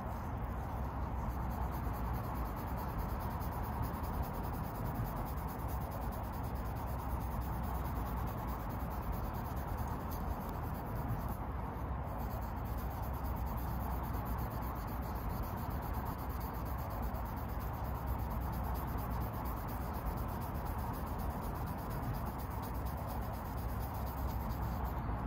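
Maroon Scotch-Brite 7447 abrasive pad rubbed back and forth across a titanium bike frame's head tube, a steady scrubbing as it buffs scratches out of the brushed finish.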